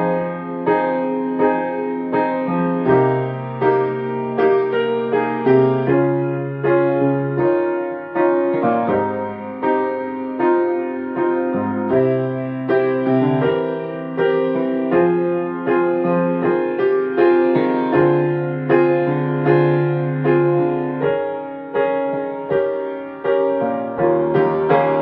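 Solo piano playing the accompaniment part of a Japanese choral song, with no choir: a steady pulse of chords about twice a second over long-held bass notes.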